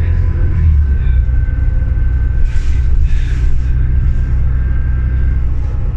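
Cabin sound of a 2006 New Flyer D40LFR diesel transit bus under way: the engine and drivetrain running with a steady low rumble and a faint steady high whine. Two brief whooshes of noise come about halfway through.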